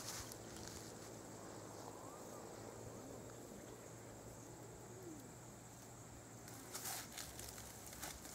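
Faint, steady high-pitched insect drone that stops a little over six seconds in, followed by a few brief rustles near the end.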